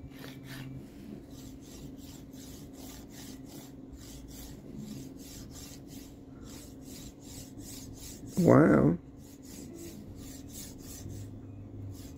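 Steel MGN9H linear rail carriage block (Formbot Vivedino) slid quickly back and forth along its rail by hand: a steady run of short sliding strokes, several a second. Its balls have just been re-packed in grease and refitted, and the owner finds this has cured the weird noise it made.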